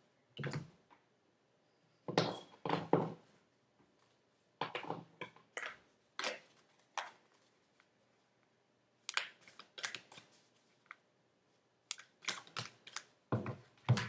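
Tarot cards being handled on a wooden table: irregular clicks and light taps as cards are picked up, flicked and set down, in scattered clusters.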